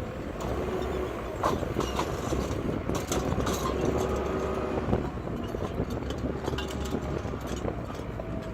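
Engine of paving-site machinery running steadily, with scattered sharp knocks.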